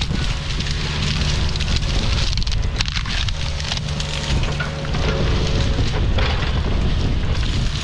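Excavator engine running steadily while brush and small branches crackle and snap as the rake pushes through them.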